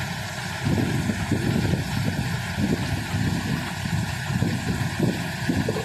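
Malwa multi-crop thresher running while pearl millet earheads are fed into it: a steady low mechanical rumble that gets louder about a second in and then rises and falls unevenly as the heads go through the threshing drum.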